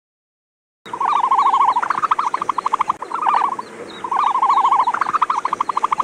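Animal call: a rapid pulsing trill, repeated in two long bouts with a short break between them.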